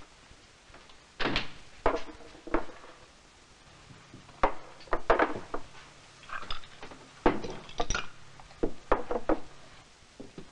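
A string of short, sharp knocks and clatters in small irregular clusters, about a dozen in all, with quieter gaps between them.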